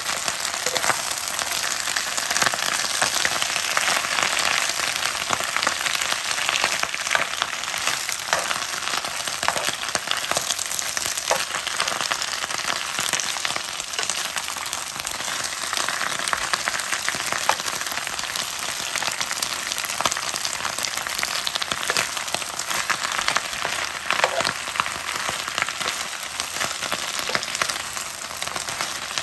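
Bok choy sizzling in hot oil in a frying pan while being stirred with a metal spoon. The steady sizzle is broken by occasional light clicks and scrapes of the spoon against the pan.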